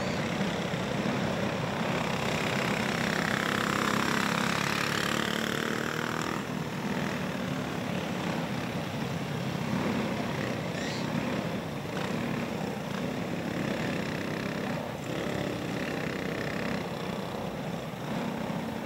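Go-kart engines running on a dirt oval, small single-cylinder motors droning steadily. One kart passes a few seconds in, its pitch sliding down as it goes by.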